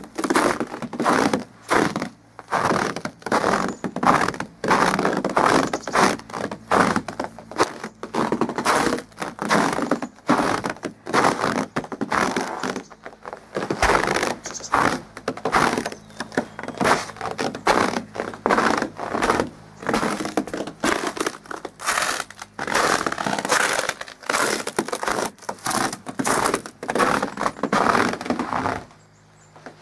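Footsteps crunching through crusty, frozen snow: a long, regular series of sharp crunches, with a brief pause near the end.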